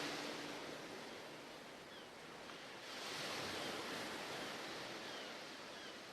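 Sea surf washing, a soft, even hiss that swells again about three seconds in, with a few faint high chirps over it.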